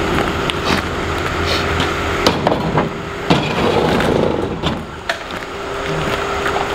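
Several sharp knocks and clicks at irregular intervals, over a steady low hum.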